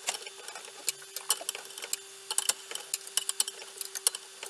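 A screwdriver turning a bed-levelling screw on a Prusa i3 3D printer, making rapid, irregular small clicks and ticks while the bed height is adjusted against a sheet of paper under the nozzle. A steady hum runs underneath.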